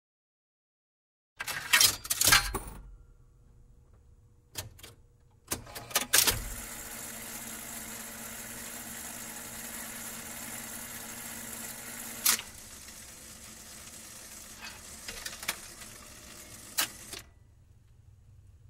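Vinyl record surface noise: a cluster of sharp clicks and pops, then a steady crackling hiss over a low hum with a few isolated loud pops, which stops about a second before the end.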